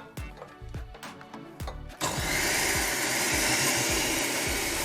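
Electric kitchen blender switched on about two seconds in, its motor running loud and steady as it blends a chili and garam masala sauce. Background music with a steady beat runs underneath.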